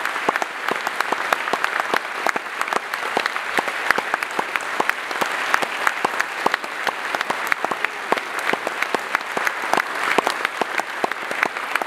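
Audience applauding, dense clapping at a steady level.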